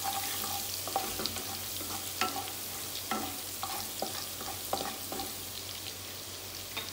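Crushed garlic and whole spices sizzling in hot oil in a clay pot, with a wooden spatula scraping and knocking against the pot every second or so as they are stirred.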